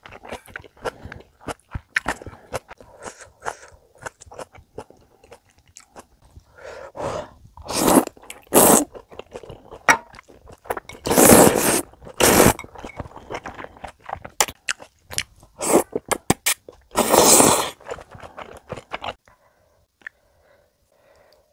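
Close-miked eating of sausage stew: wet chewing and small mouth clicks, broken by about four loud slurps of ramen noodles in the middle of the stretch.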